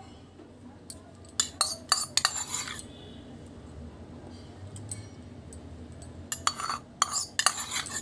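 A steel spoon clinking and scraping against a plate while tomato sauce is spooned on, in two clusters of quick taps: one about a second and a half in and another near the end.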